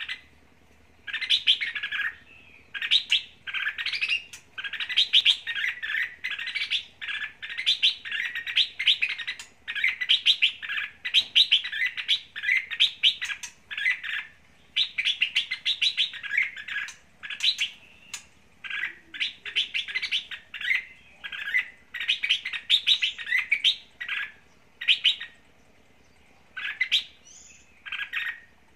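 Caged red-whiskered bulbul singing its full song, which keepers of fighting and decoy bulbuls call a leader's voice. It sings short warbling phrases, one after another with brief gaps, from about a second in, more sparsely near the end.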